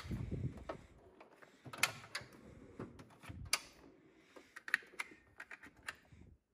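Steel drawers of a rolling tool cart being pulled open and pushed shut, with a low rumble of the drawer sliding and tools rattling inside, and a run of sharp clicks and clacks. The sound cuts off suddenly at the end.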